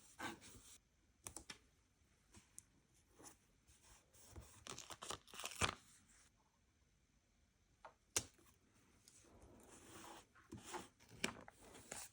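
Paper being torn and crinkled by hand in short spells: a rasp at the start, a longer tear in the middle and more tearing near the end, with brief pauses between.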